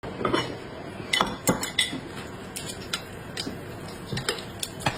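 Kitchen utensils and dishes clinking and knocking in an irregular series of sharp clicks, some with a short high ring.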